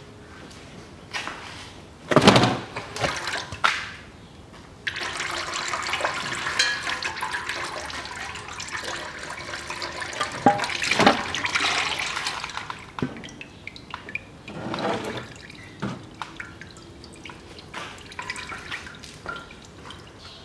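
Automatic transmission fluid pouring and splashing out as the Toyota Caldina's transmission oil pan is pried loose and lowered: a steady pour of about eight seconds starting about five seconds in. Knocks and clunks from the metal pan come about two seconds in and again near fifteen seconds.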